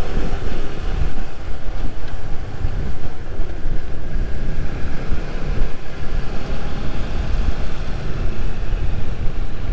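Wind rumbling on the microphone from riding, over steady road and traffic noise.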